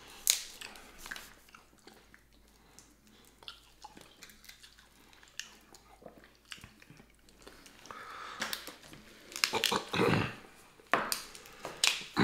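Snow crab leg shells snapping and cracking by hand, mixed with close-up chewing and biting of crab meat. One sharp crack comes right at the start, and the cracking and chewing grow busier near the end.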